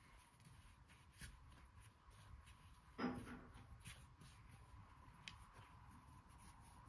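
Near silence with faint scraping and light handling sounds, and one louder short knock about three seconds in.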